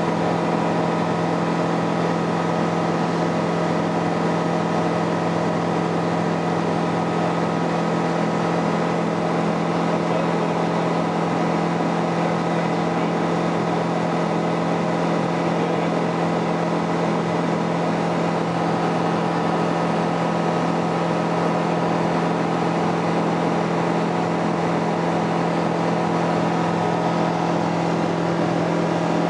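Zodiac light aircraft's piston engine and propeller running steadily, heard from inside the cockpit: an even drone with one strong low hum and many higher steady tones.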